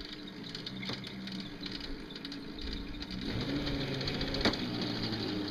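Electric drive motor of a homemade battery-powered mini bulldozer whining steadily as it pushes into a pile of dirt. About three seconds in its pitch drops and a lower hum joins, and there is a sharp click near the end.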